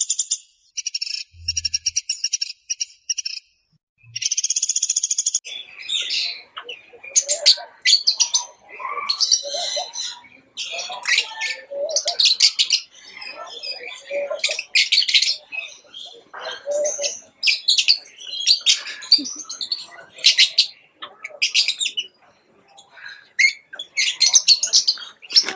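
Birds calling: about five seconds of high, buzzy pulsed trills in separate bursts, then a busy stretch of many varied chirps and squawks.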